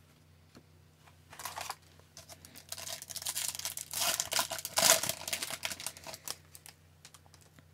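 A foil 2019-20 Upper Deck Series 2 hockey card pack torn open and crinkled by hand, the wrapper crackling in bursts, loudest about four to five seconds in, followed by a few light clicks as the cards are slid out of the wrapper.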